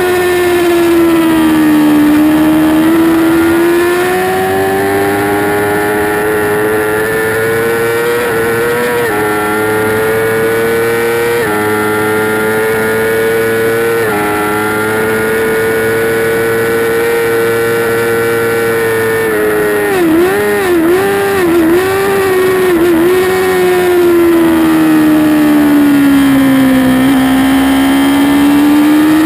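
2008 Yamaha R6 inline-four sport-bike engine at high revs on a racetrack, heard from on board. It dips and then pulls up through the gears with small drops in pitch at each upshift. About two-thirds of the way in there is a cluster of quick rev changes as it shifts down under braking, then the revs fall through a corner and climb again near the end.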